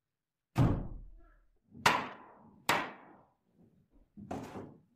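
Hammer blows knocking on a wooden board, punching a leather washer: three sharp knocks, then a softer one near the end.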